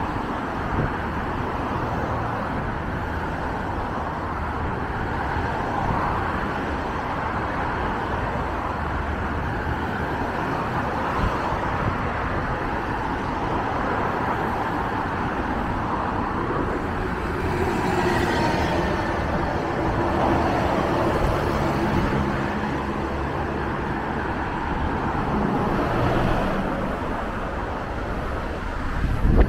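Steady road traffic: cars driving past on a multi-lane avenue, the noise swelling and fading as vehicles go by, loudest about two-thirds of the way through.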